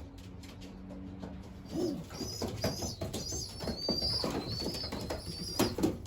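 Pigeons in a loft: low cooing, then from about two seconds in a busy chorus of high, wavering squeaks from young pigeons begging as the adults feed them, mixed with cooing and scuffling clicks.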